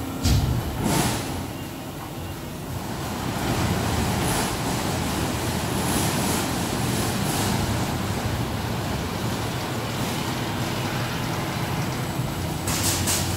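Flatbed laser cutting machine's pallet changer running, shuttling the slatted cutting tables loaded with aluminium sheets: a steady low mechanical noise, with sharp knocks in the first second and a quick cluster of clicks near the end.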